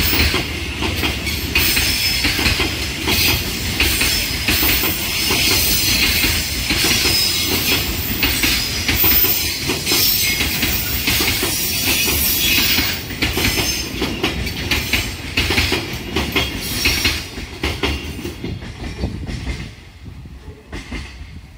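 Container freight train's wagons rolling past, steel wheels clattering over the rail joints in a dense run of knocks. The noise dies away over the last couple of seconds as the train draws off.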